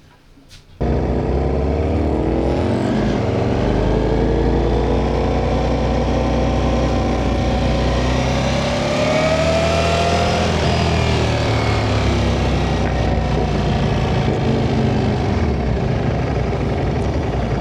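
Motorcycle engine running while under way, with steady wind rush; it starts suddenly about a second in, and the engine note rises to a peak about halfway through, then drops back.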